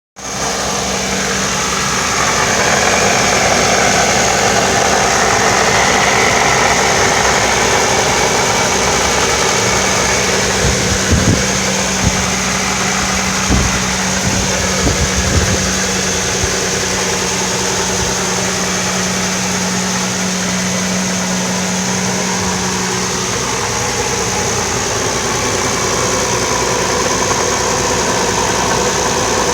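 Toyota 4.0L V6 with a TRD supercharger idling just after a cold start. A steady droning tone, the supercharger noise that shows up after a cold start, runs with the idle and fades out about three-quarters of the way through. A few brief knocks come in the middle.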